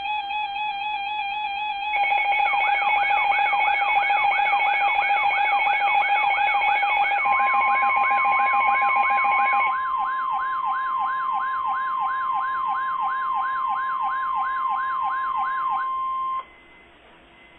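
Electronic weather-alert tones sounding together. A warbling alarm tone is joined about two seconds in by a quick repeating upward sweep, about two a second, and about seven seconds in by a steady NOAA Weather Radio warning alarm tone. The warble stops near ten seconds, and the sweep and the steady tone cut off about sixteen seconds in.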